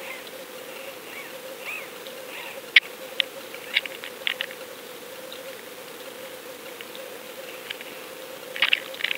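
Underwater sound picked up by a submerged fishing camera: a steady hum with scattered sharp clicks, several about three to four and a half seconds in and a quick cluster near the end.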